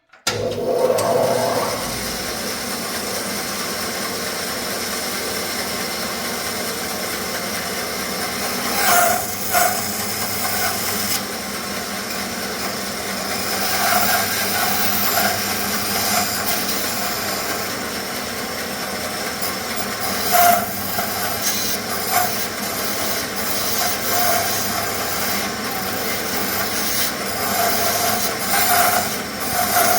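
Bandsaw running and cutting relief cuts into a thick block of wenge hardwood, a steady noise that grows louder for a moment several times as the blade bites into the wood.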